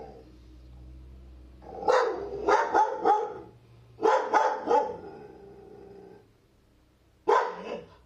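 Dog barking in quick clusters: several barks about two seconds in, another volley about four seconds in, and a single bark near the end, with a low growl at the start, as dogs play together.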